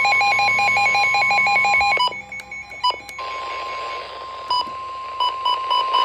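Weather-radio emergency alert tone: a steady warning tone near 1 kHz with a fast beeping alarm over it for about two seconds. It is broken by clicks and brief dropouts, then the steady tone carries on with occasional higher beeps, signalling a warning about to be read.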